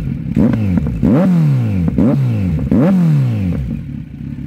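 Kawasaki inline-four sportbike with an aftermarket Akrapovič exhaust, revved in four quick throttle blips that each climb and fall back, then dropping back toward idle near the end.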